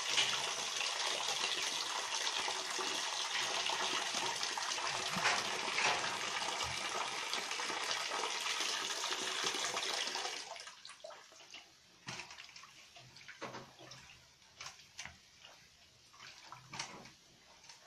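Tap water running steadily into a metal basin where halved green papaya is being washed and its seeds scraped out. The water stops about ten seconds in, leaving small splashes and knocks of hands and papaya moving in the basin.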